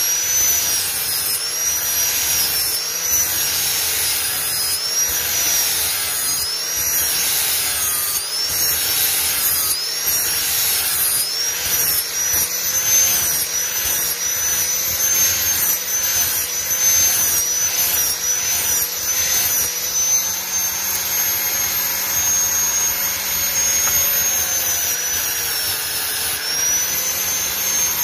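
Electric angle grinder with an abrasive disc grinding the steel handle of a claw hammer. The motor's whine sags in pitch and recovers again and again as the disc is worked along the metal, then holds steadier and higher for several seconds before dipping once more near the end.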